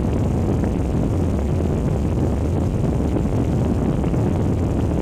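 A steady, loud low rumble with no clear pitch or rhythm, used as a scary sound effect.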